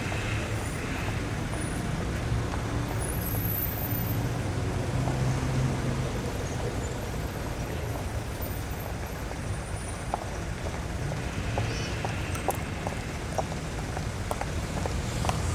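City street traffic: a steady wash of passing cars with a low engine rumble, and scattered light clicks in the second half.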